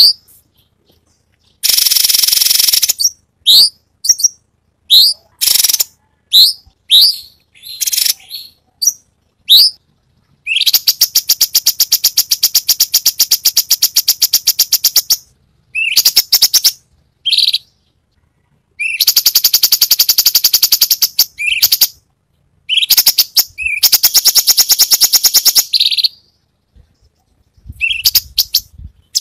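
Cucak cungkok songbird singing: short upward-sweeping whistled notes alternating with long, fast rattling trills that run for several seconds at a time.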